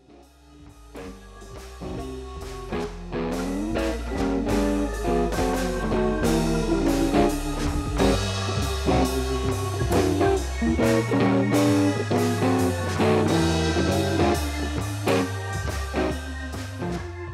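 Instrumental outro music led by guitar over a steady beat, fading in at the start.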